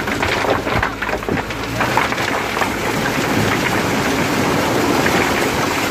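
Boulders, gravel and sand sliding and tumbling off the raised bed of a tipper truck: a dense, continuous rumbling clatter full of knocks from rocks striking each other and the ground.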